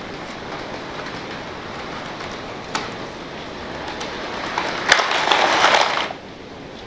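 OO gauge model train running on the layout's track: a steady rolling rattle of wheels on rail, with a sharp click a little under three seconds in. It grows louder for about a second near the end, then drops away.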